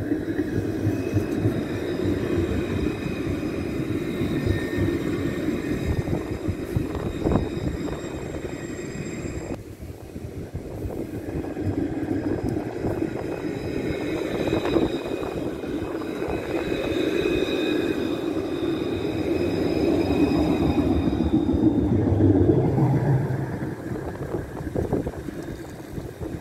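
Electric tram running on a curved track: a rumble of wheels on the rails with several steady high tones over it. It dips briefly about ten seconds in, then swells to its loudest a few seconds before the end as a tram draws close, and fades.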